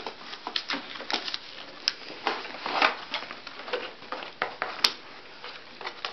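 Toy packaging rustling and clicking as scissors cut the strings that tie the toy into its cardboard box, with two sharper clicks about two and five seconds in.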